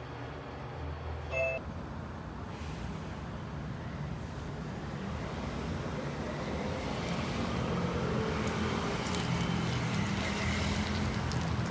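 Steady noise of a car on the road, with a low engine hum, slowly growing louder.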